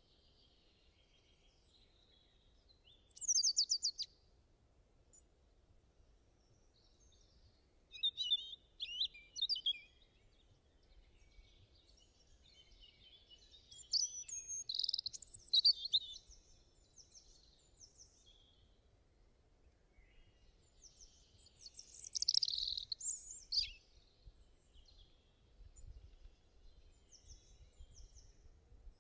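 Birds chirping and singing in several short bursts of high song a few seconds apart, over a faint low background hum.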